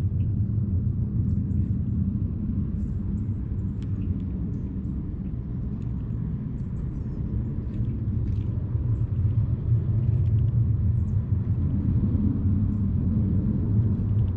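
Low, steady rumble of wind buffeting the microphone, growing a little louder about eight seconds in, with a few faint high ticks.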